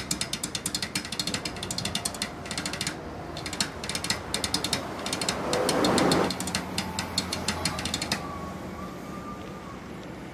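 Rapid, even mechanical clicking like a ratchet, about ten clicks a second, stopping about two seconds before the end. About six seconds in, a swell of noise rises and cuts off.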